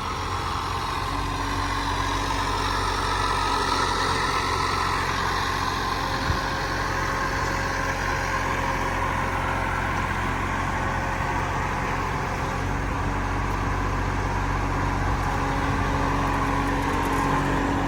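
Yanmar diesel engine of a 2-ton mini-excavator running steadily.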